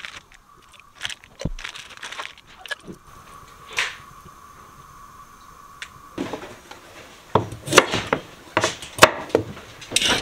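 Plastic wrap and butcher paper rustling softly as raw oxtails are unwrapped by hand. In the second half comes a run of sharp scrapes and knocks as carrots are peeled and handled over a wooden cutting board.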